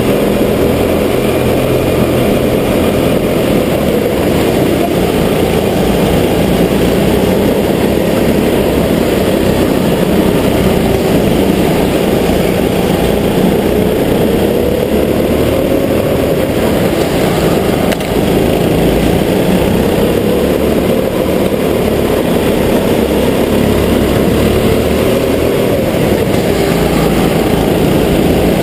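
Go-kart engine running under way, heard from on board the kart. Its pitch rises and falls as the kart speeds up and slows.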